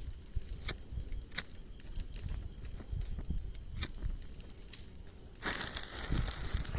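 Wood bonfire crackling, with a few scattered sharp pops. About five and a half seconds in, a loud steady hiss sets in suddenly.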